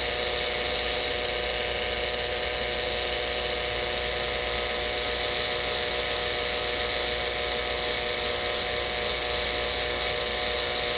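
Dental handpiece spinning a small round bur at steady speed, a constant whine with several held tones, as the bur refines the fissures and grooves of a cast gold bridge.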